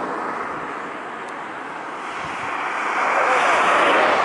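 Jet engine noise from a Boeing 747-400 with Rolls-Royce RB211 turbofans, heard as a steady rushing. It eases slightly, then grows louder about three seconds in.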